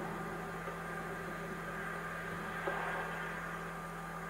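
Steady low hum with faint hiss, the background noise of a VHS tape transfer; no train is heard.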